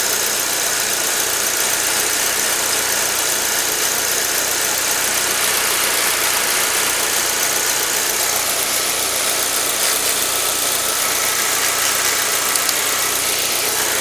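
Saab 9-3's 2.0-litre turbocharged four-cylinder engine idling steadily, heard up close in the open engine bay. The engine logs random misfire codes, though no misfire can be felt.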